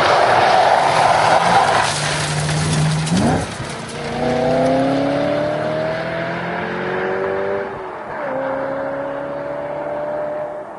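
BMW M3 E92's V8 at high revs with the tyres sliding as the car drifts through a bend, then the engine note climbing steadily as it accelerates away, broken by two gear changes, about three seconds in and near eight seconds, and fading as it pulls away.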